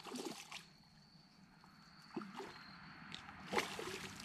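Catfish splashing in shallow water as it is released by hand: a few separate splashes, the loudest near the end.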